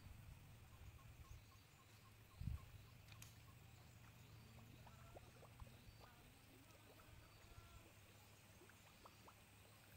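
Near silence: faint outdoor ambience with a low steady rumble, one soft low thump about two and a half seconds in, and faint scattered small chirps and ticks.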